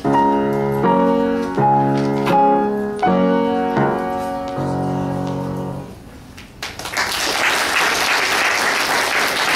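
Grand piano played four hands in duet: a run of chords, the last one held and dying away about six seconds in. Then the audience breaks into applause.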